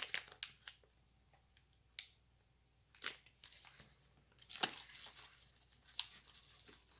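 Plastic snack wrapper crinkling and tearing as it is pulled open, then a few faint rustles and sharp clicks.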